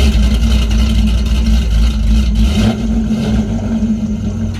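LS1 V8 engine just fired up, running loud at a fast idle that drops and settles lower about two and a half seconds in; the owner says it still needs a tune.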